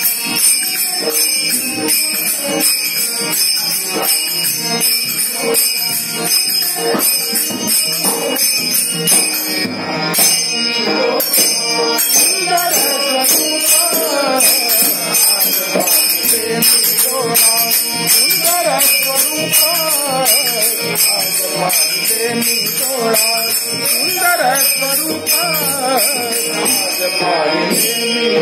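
Marathi abhang bhajan: harmonium chords with a pakhwaj barrel drum and small brass hand cymbals (tal) struck in a steady, fast rhythm. Voices sing the melody from about twelve seconds in.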